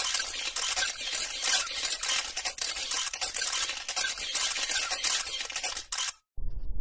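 Dense hissing, crackling sound effect of an animated channel intro, full of fine clicks, cutting off abruptly about six seconds in. A low rumble starts just before the end.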